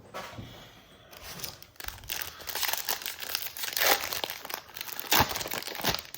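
Foil wrapper of a trading-card pack crinkling and tearing as it is ripped open, a dense crackle of small clicks starting about a second in.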